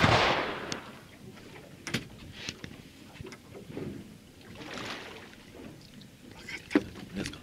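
Water washing against a fishing boat's hull. It is loudest at the start and fades over about a second, with a few sharp knocks after it.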